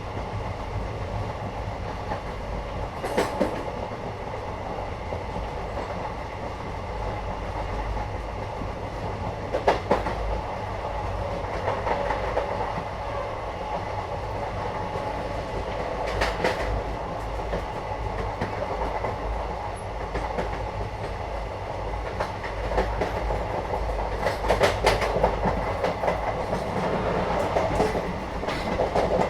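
Interior of a moving Indian passenger train: the carriage's steady rumble and rattle, broken by sharp clacks about 3, 10 and 16 seconds in and a quicker run of clicks near the end.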